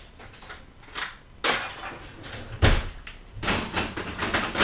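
Dishes being washed in a kitchen sink: irregular clanks and rattles of crockery, pots and utensils, with a heavier knock and thud about two and a half seconds in, followed by a quick run of clatters.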